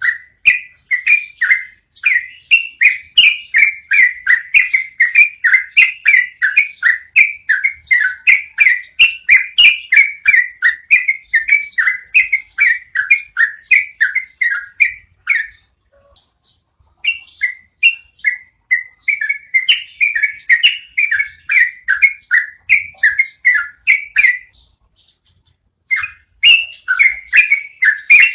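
Yellow-vented bulbul singing long rolling runs of repeated chirping notes, about two a second, pausing briefly twice before starting up again.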